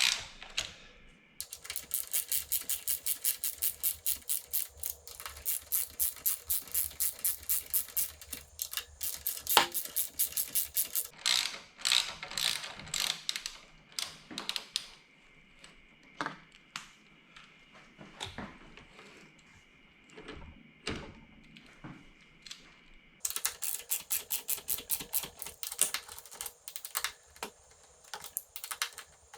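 Ratcheting hex (Allen) driver clicking as the handlebar riser clamp bolts are tightened. The clicks come in quick even runs of about four a second, with scattered single clicks between the runs.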